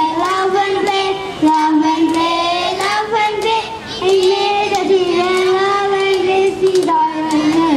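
A child singing a song in long, held notes, phrase after phrase.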